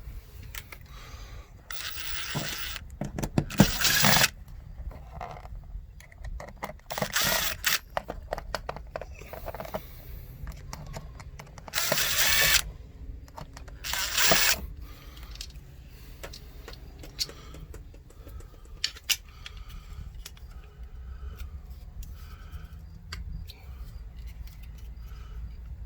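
Tool work on a doorbell mounting bracket: a series of short rasping bursts, some with rapid clicking, each under a second, over a steady low background rumble.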